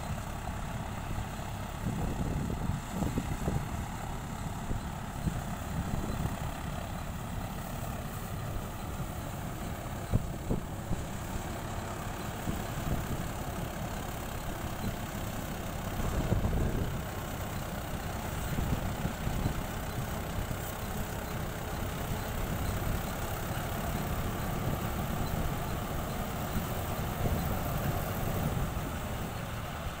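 Combine harvester running steadily as it cuts and threshes rice, its engine a continuous mechanical drone.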